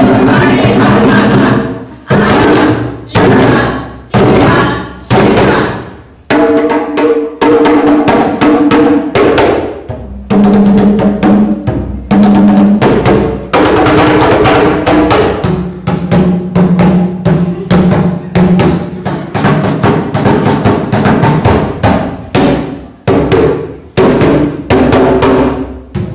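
Several djembes played together in a rhythm of hand strokes, with voices singing long held notes over the drumming.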